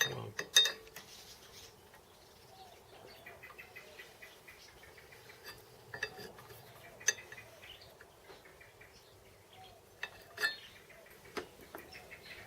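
Light metal clinks and clicks of tools and metal parts handled during bench work, with sharp ones about half a second in, around seven seconds and around ten seconds. Faint high chirping runs underneath.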